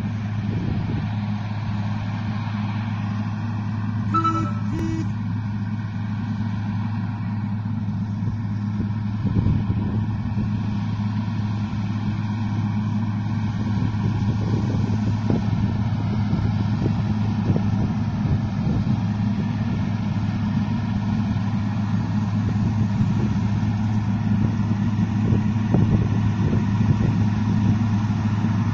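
Agrico 4+400 tractor's diesel engine running steadily in the distance, a low, even drone that grows slowly louder as the tractor comes closer. Two short beeps sound about four seconds in.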